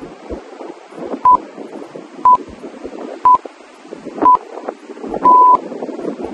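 Workout interval-timer countdown beeps: four short electronic beeps at one pitch, one second apart, then a longer beep at the same pitch. The long beep marks the end of the rest and the start of the next exercise.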